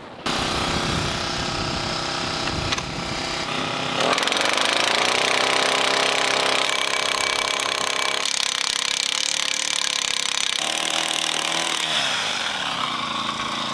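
Petrol-powered handheld post driver, its small engine running and hammering a stanchion pole down into sand. The engine speeds up about four seconds in, and its pitch drops and rises a few times as it works.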